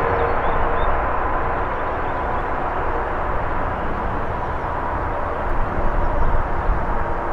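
Jet engines of an Airbus A330-300 airliner running with a steady whine, while gusty wind rumbles on the microphone.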